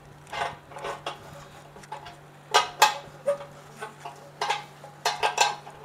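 Steel spanner clinking and scraping against the heating element's terminal nuts and the stainless steel drum of an autoclave as the nuts are tightened: several short metallic clinks with a slight ring, in small clusters.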